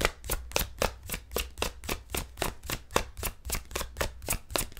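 A deck of tarot cards being shuffled by hand, the cards slapping together in a quick, even rhythm of about four strikes a second.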